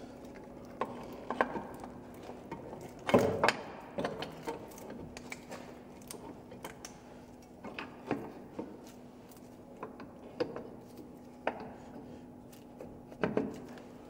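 Irregular metallic clicks and knocks from hand tools and front suspension parts as the drive shaft is put back into the hub and the suspension is reassembled, over a faint steady hum. The loudest knocks come about three seconds in and near the end.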